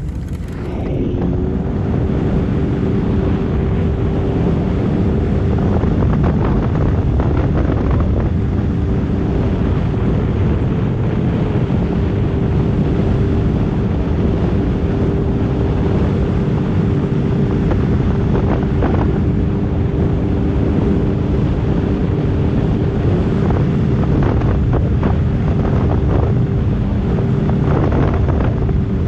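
Sea-Doo personal watercraft engine running at a steady cruising speed with a steady hum, under the rush of water along the hull and wind buffeting the microphone.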